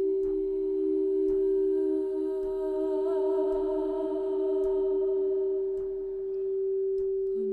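Ambient sound-healing drone of sustained pure tones, like a tuning fork or singing bowl, layered a few notes apart, with higher overtones that waver for a moment. A lower tone fades away over the second half, a new low tone comes in at the very end, and faint ticks recur about once a second.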